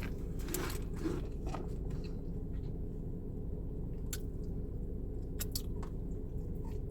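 A person biting and chewing food close to the microphone, with a few short sharp crunches or clicks. A steady low hum runs behind.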